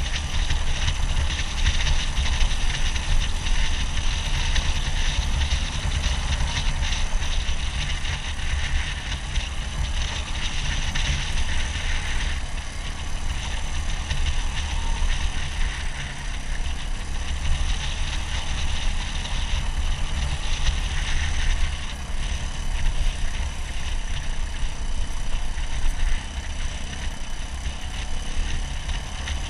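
Suzuki DR200's single-cylinder four-stroke engine running steadily while the motorcycle is ridden, with heavy wind rumble on the microphone.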